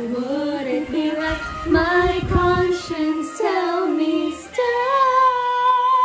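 A young woman singing a song, gliding between notes and ending on one long held note near the end.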